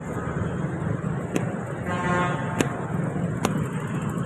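Steady traffic noise from engines and tyres on a wet, flooded street. A vehicle horn sounds for about a second, starting about two seconds in, and a few sharp clicks come through.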